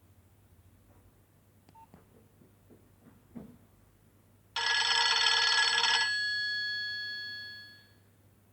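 A few faint clicks, then a Nokia 2610 mobile phone's loudspeaker plays a ringtone preview: a sudden, bright, bell-like ring of many tones. It holds for about a second and a half, then rings on and fades away over the next two seconds.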